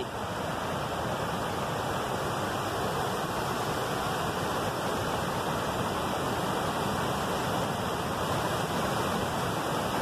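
Steady rushing of a waterfall and the white-water rapids below it, pouring over rocks.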